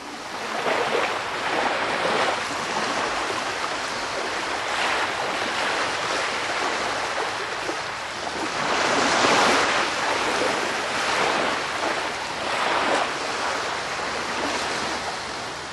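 Ocean surf, waves breaking and washing in, rising and falling in swells, loudest about nine seconds in.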